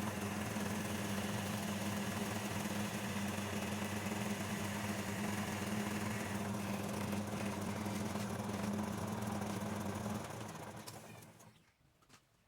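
Homemade metal lathe running steadily, its electric motor driving the belt-and-pulley spindle with a steady hum. About ten seconds in it is switched off and the sound winds down over a second or two to near silence.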